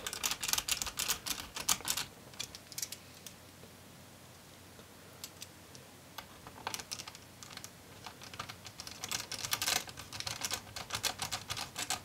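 Small Phillips screwdriver driving home the two mounting screws of a laptop's 2.5-inch drive: quick, light metal clicks of the driver tip turning in the screws. The clicking comes in two spells, with a quiet gap of a few seconds in the middle.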